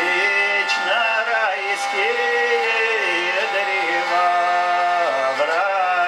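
A man singing a Russian spiritual verse to a hurdy-gurdy, the wheel's steady drone sounding under his gliding vocal line.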